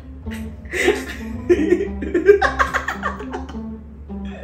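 A man and a woman laughing over a light background music track.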